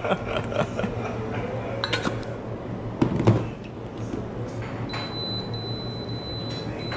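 Knocks and clinks of café counter work over a steady low machine hum. There is a sharp strike about two seconds in and a cluster of knocks just after three seconds, and a thin steady high tone sounds over the last two seconds.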